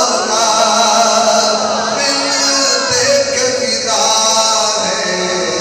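A man's voice chanting in a sung, melodic style, with long held notes that bend up and down in pitch, as in the sung passages of an Urdu sermon.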